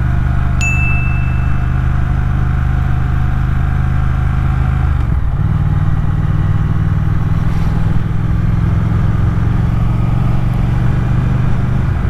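Motorcycle engine running steadily under way, recorded onboard. About five seconds in the engine note breaks briefly and settles at a slightly different pitch, as at a gear change.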